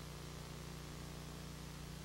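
Steady hiss with a low electrical hum underneath: the bare noise floor of a recording with no programme sound.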